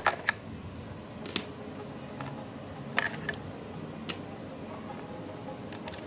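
AA batteries being pried out of a toy RC car's plastic battery compartment: a handful of light, separate clicks and taps of battery against holder and against each other.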